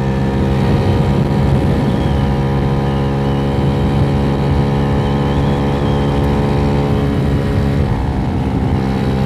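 Engine of a GY6 scooter with an 88cc big bore kit running at steady high revs while riding. It pulls through a Polini variator with 6.9 g rollers, and the pitch shifts slightly about eight seconds in.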